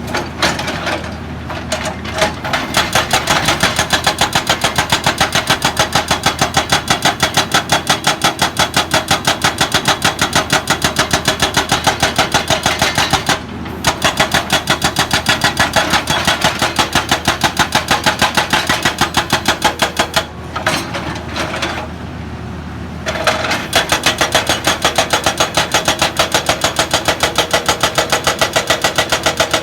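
Excavator working, with a fast, even hammering. The hammering breaks off briefly about halfway through and again for a couple of seconds about two-thirds through, over a steady low engine hum.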